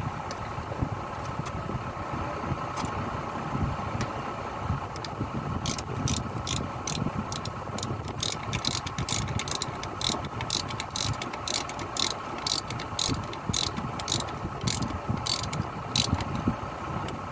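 Hitachi Zaxis excavator engine running steadily at idle. From about six seconds in, a regular series of sharp metallic clicks, about two and a half a second, runs over it for some ten seconds before stopping.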